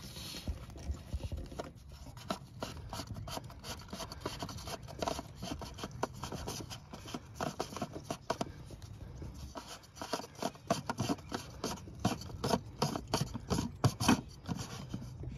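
Fuel filter housing cap being unscrewed by hand and worked loose: scraping, rubbing and irregular small clicks, busier and louder toward the end.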